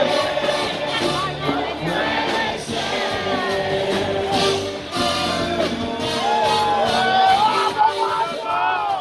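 Music with singing voices and some shouting over it.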